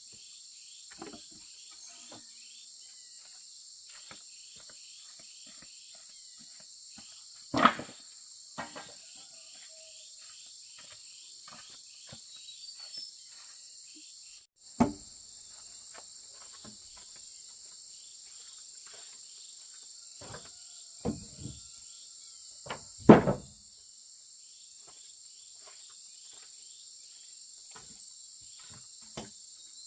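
Steady insect chorus, a continuous high buzz with a fast pulsing chirp beneath it, broken by occasional short knocks and thuds. The loudest knocks come about eight, fifteen and twenty-three seconds in.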